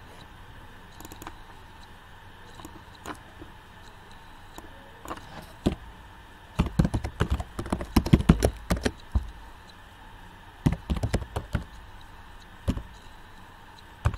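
Typing on a computer keyboard: a few scattered key clicks, then quick bursts of keystrokes from about six seconds in.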